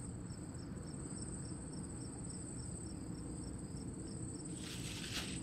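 Crickets chirping: a steady high trill with a second, pulsed chirp repeating about three times a second, over a low steady background rumble. A brief rustle comes near the end.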